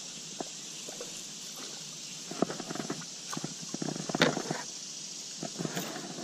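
Irregular clicks and knocks from a spinning rod and reel being handled in a kayak as a fish is brought in, loudest a little past the middle, over a steady hiss.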